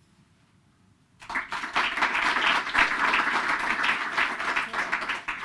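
Audience applauding. The clapping breaks out about a second in and eases off near the end.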